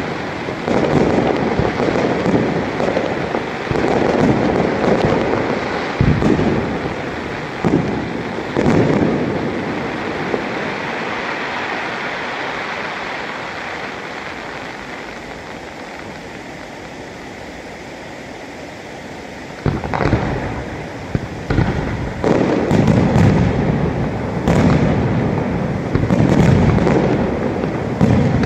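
Aerial fireworks display: shells bursting with repeated bangs, dying down to a quieter stretch in the middle, then a dense barrage of bangs starting about twenty seconds in.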